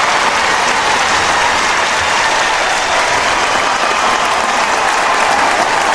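A large crowd applauding steadily, a dense wash of many hands clapping with some cheering mixed in.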